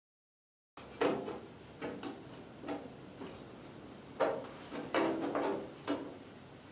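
Sheet-steel patch panel being handled and fitted against a pickup bedside: a series of about six light clanks and rattles of thin metal, starting about a second in.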